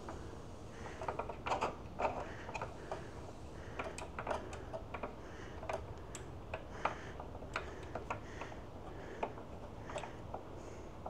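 An Allen key turning the small screws that fix a motorcycle GPS-mount crossbar: light, irregular clicks and ticks.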